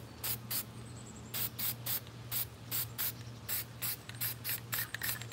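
Aerosol can of Rust-Oleum fluorescent spray paint being sprayed onto a fishing rod in short, rapid bursts of hiss, about three or four a second, with a brief pause about a second in.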